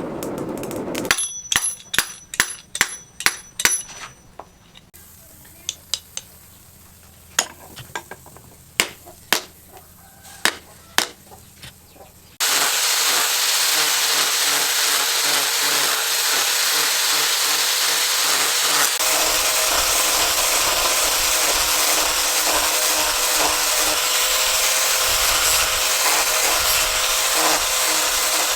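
A series of light metallic taps and clinks with a short ring, then sparser clicks, then a power sanding or grinding tool abruptly running steadily against the workpiece with a hissing, rasping sound.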